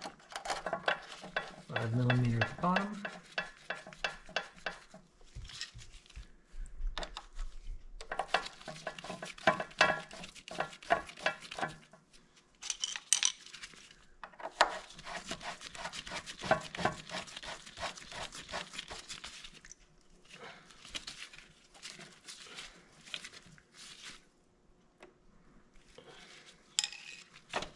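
Metal clinking and runs of rapid clicking from hand tools and hardware as a motorcycle front brake caliper is fitted and its bolts are run in. The clicking comes in bursts of a few seconds, the longest about halfway through.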